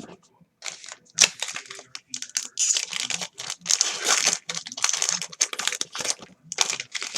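A trading-card pack wrapper being torn open and crinkled in a run of rustling bursts, with a sharp loud tear about a second in.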